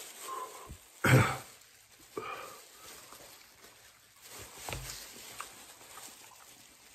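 A man eating a chicken wing coated in extremely hot pepper-extract sauce, breathing hard and gasping at the burn while he chews, with one loud sharp exhale about a second in.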